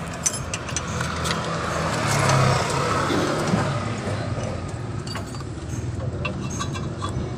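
A motor vehicle engine running nearby as a steady hum that swells louder about two seconds in, over light metallic clicks of a brake caliper bolt being worked in by hand.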